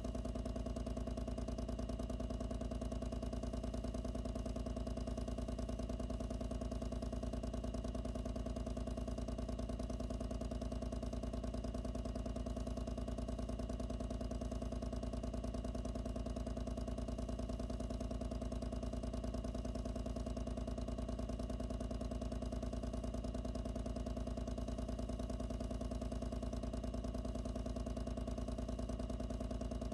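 A loud pump running steadily, heard close up by a microphone inside the same box: an even, unchanging hum with a rapid fine pulse.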